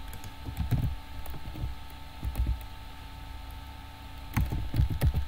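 Computer keyboard being typed on: a few scattered keystrokes, then a quicker run of key presses near the end, over a faint steady hum.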